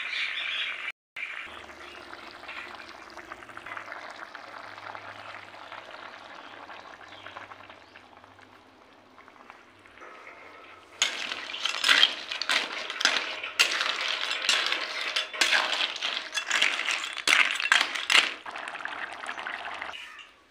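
Water snail curry boiling in a kadai: a steady bubbling hiss, then from about halfway a louder, rapid run of sharp pops and clicks as the boil gets rougher.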